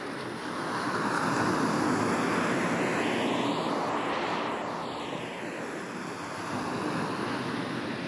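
Ocean surf breaking and washing on a beach as a steady rush. It swells about a second in, eases off after about five seconds and builds again near the end. The 8D-audio processing gives it a sweeping, whooshing quality.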